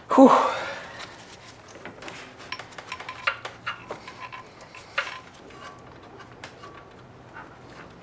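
A loud exhaled "whew", then scattered faint clicks and clinks of hand tools and metal fasteners being handled during engine-bay work.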